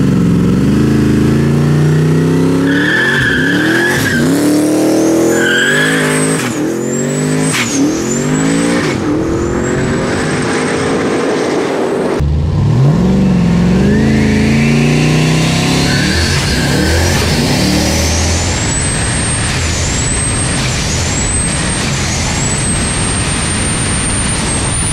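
Turbocharged 408 stroker V8 in a Chevy Colorado pulling hard through the gears of its automatic, engine note climbing and dropping at each shift. The bed-mounted turbo's high whine rises with each gear and dips at every shift. Tires squeal briefly early on. The truck accelerates like this twice.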